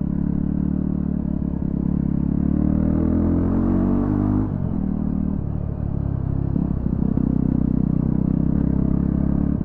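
Yezdi Scrambler's 334 cc single-cylinder engine running with both silencers removed, unmuffled from its twin exhaust pipes. It climbs in pitch under throttle for a couple of seconds, drops away sharply about four and a half seconds in, then runs on steadily.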